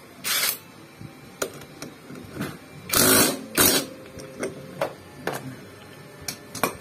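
Cordless impact wrench hammering on a scooter's magneto (flywheel) nut to undo it: one short burst near the start and two longer bursts around the middle. Lighter clicks and clinks of the socket and nut follow.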